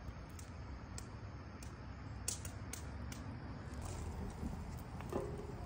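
Wood fire crackling: scattered sharp pops at irregular intervals over a faint steady low background.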